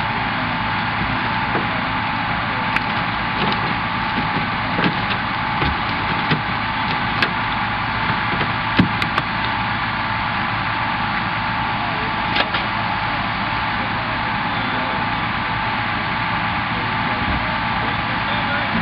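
Hydraulic rescue tool (jaws of life) at work cutting a car's roof pillars: its power unit's motor runs steadily under scattered sharp cracks and snaps of metal and glass giving way, the loudest about nine seconds in.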